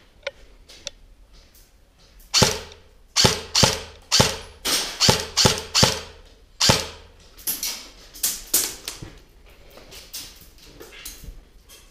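Airsoft electric gun (a G&G GC26, M4-type AEG) firing single shots on semi-auto: about fifteen sharp cracks, irregularly spaced over some seven seconds starting about two seconds in, each echoing off the hard walls of the building.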